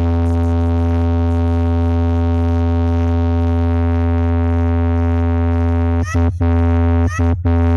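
DJ sound-check track: a loud, sustained electronic synthesizer chord over a heavy bass note, held steady for about six seconds, then chopped by short gaps with quick rising chirps roughly once a second.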